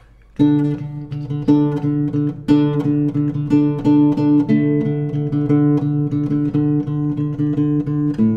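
Nylon-string classical guitar played fingerstyle: a steady pulse of plucked low notes under a melody line, starting with a strong attack about half a second in.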